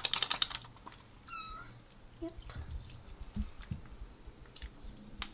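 Kitten giving one short, high mew about a second in while being bathed in a sink, with light water drips and small splashes around it. A fast patter of clicks fades out in the first half-second.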